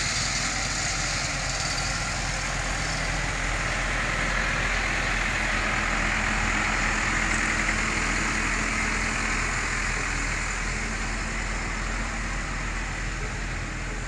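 Tractor engine running at low speed as a tractor pulling a float passes close by, a little louder about halfway through.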